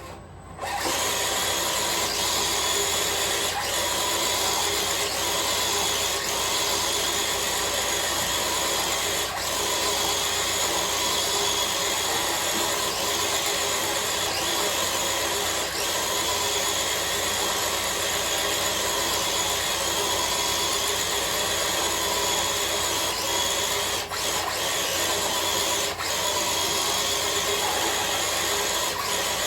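Traxxas TRX-4 RC crawler's electric motor and geared drivetrain whining steadily under load as it pulls a five-block load. It starts suddenly about a second in.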